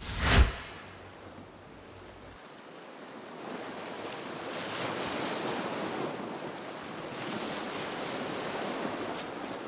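A short, loud hit at the very start, then a steady rushing noise that swells about three seconds in and holds.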